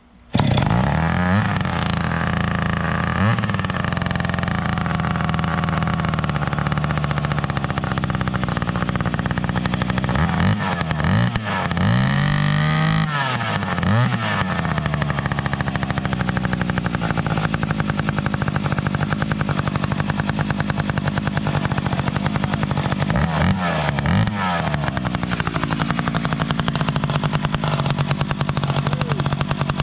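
Vintage Stihl 031 two-stroke chainsaw, fitted with two stacked carburetors, catching on a cold start and running. The throttle is blipped a few times: revs rise and fall about three seconds in, several times between ten and fourteen seconds, and twice near twenty-four seconds.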